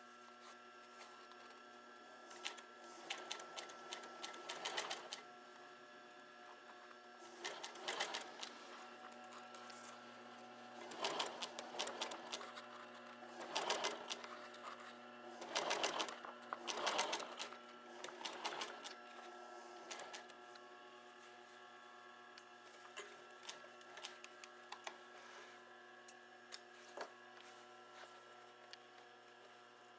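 Industrial sewing machine stitching through a leather seat cover along its piping edge in short runs of a second or two, stopping and starting about six times, over a steady electrical hum. In the later part, only a few scattered clicks.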